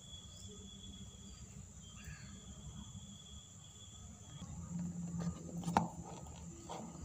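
Cardboard phone box being handled and its sealed flap picked open by fingers, with scraping and rustling that build up about two-thirds of the way in and a sharp click near the end. Before that, only a steady high-pitched whine and low hum are heard.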